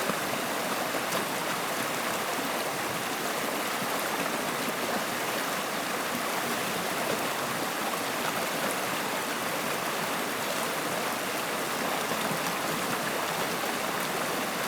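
Stream water flowing, a steady even rush with no breaks.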